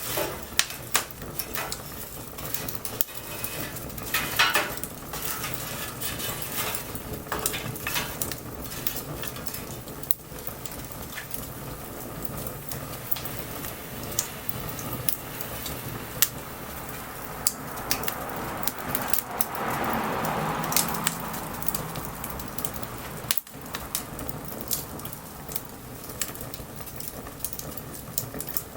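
Wood fire burning in light rain: many sharp crackles and pops over a steady hiss. A louder hiss swells for a few seconds about two-thirds of the way through.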